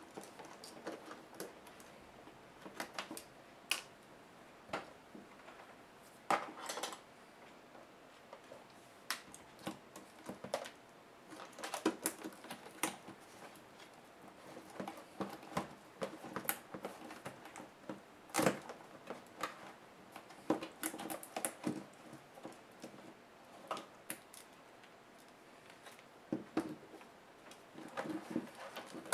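Irregular clicks, taps and light knocks of hands handling a laptop's display assembly, as the LCD panel and its metal brackets and cables are worked loose and lifted from the plastic lid.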